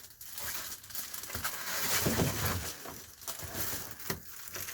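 Reflectix foil-faced bubble insulation crinkling in uneven bursts as it is handled.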